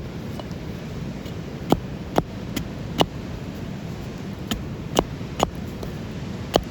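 Wood campfire crackling: sharp, irregular pops, about eight of them, over a steady low background noise.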